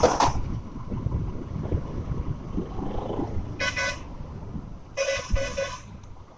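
Vehicle horns honking in traffic: one short honk about three and a half seconds in, then three quick honks about five seconds in, over a steady low rumble of road and wind noise.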